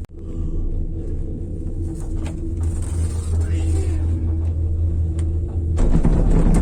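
Steady low rumble with a steady motor hum. Near the end it turns into a louder, rough rush of noise, then cuts off abruptly.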